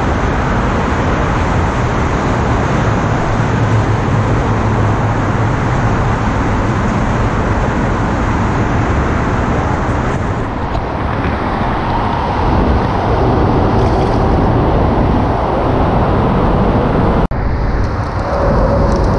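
Steady road traffic noise, a continuous rumble and hiss heard from underneath a concrete road bridge.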